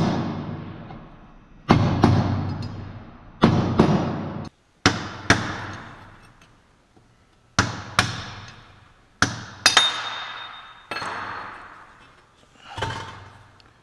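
Hammer blows on a punch driving the pinion bearing race out of a Jaguar Salisbury differential housing, about nine sharp strikes a second or two apart. Each strike rings out and fades slowly through the housing.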